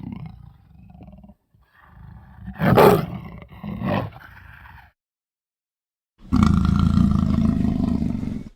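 African leopard growling: a low growl fading at the start, then two louder growling calls about a second apart. After a pause of over a second comes a steady growl of about two seconds.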